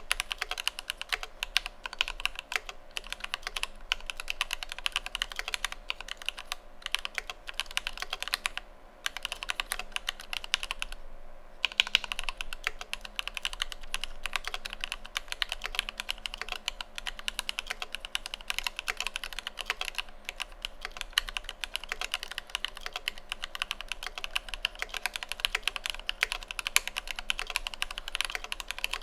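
Fast, continuous typing on an Idobao ID80 v1 mechanical keyboard with lubed Alpaca V2 linear switches and PBT Cherry-profile keycaps. The keystrokes come in a dense stream, with one brief pause a little past the middle.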